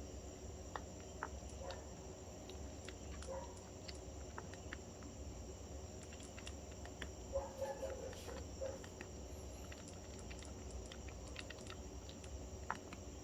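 Faint background noise: a steady low hum and a thin, high-pitched steady whine, with scattered small clicks and a few soft blips, loudest about halfway through. No ringtone is playing.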